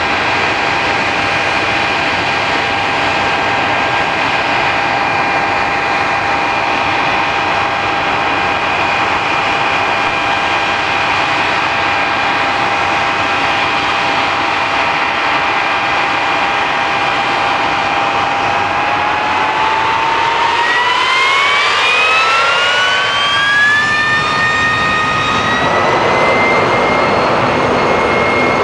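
Vickers VC10's four rear-mounted Rolls-Royce Conway jet engines running with a steady whine, then spooling up with a rising whine about two-thirds of the way through as power is applied, levelling off at a higher pitch near the end.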